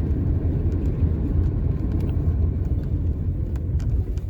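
Steady low road rumble and engine noise inside a moving car on an unfinished stretch of road, with a few faint clicks near the end.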